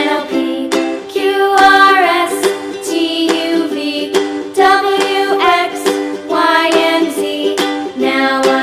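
Background music: a light tune led by a plucked string instrument, likely a ukulele, with a melody line over a steady rhythm.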